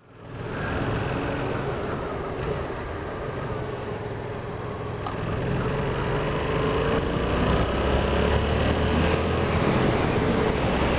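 Yamaha XSR700's parallel-twin engine running at a steady cruise, with wind rushing past. The engine note rises slightly partway through.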